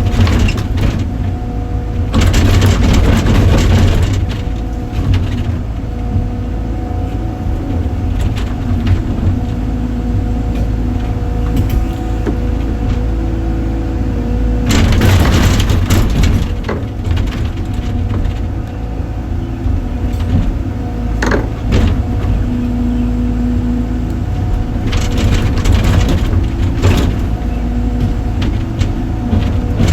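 Heavy machinery running steadily with a deep engine drone. Loud bursts of noise come and go near the start, about halfway through and near the end.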